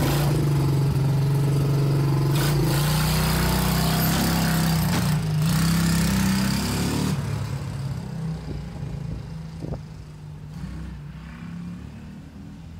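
Small Chinese ATV engine running loud, its pitch rising and falling, then fading steadily as the quad drives away over the last several seconds.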